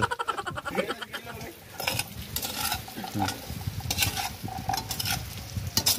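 A metal ladle stirring and scraping diced coconut in a nonstick wok, with irregular clacks and scrapes against the pan, over frying.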